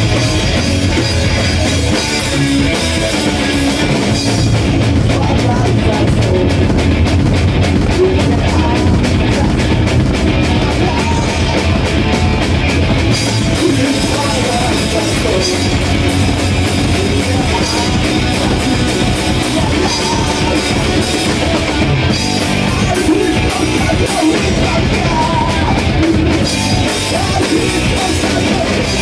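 Live rock band playing: electric guitar and drum kit, loud and continuous.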